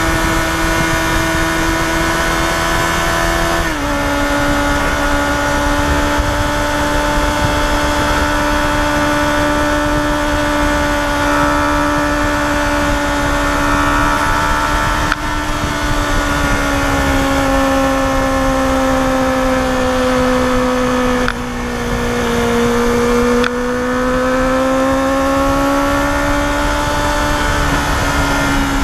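Yamaha FZR250R's 250 cc inline-four engine held at high revs while riding uphill, a steady high-pitched wail over rushing wind. The pitch steps down slightly about four seconds in, sags gradually through the middle, dips briefly and then climbs again near the end.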